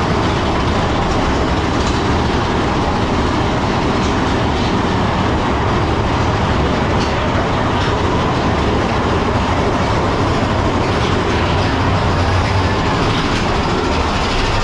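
Big Thunder Mountain Railroad mine-train roller coaster cars rumbling steadily along the track, heard loud from a seat on board, with a few scattered clacks.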